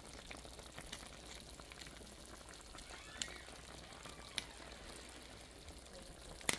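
A pot of beef stew simmering on the stove: a faint steady hiss with a few sharp pops, three of them standing out, at about a third of the way in, about two thirds of the way in, and near the end.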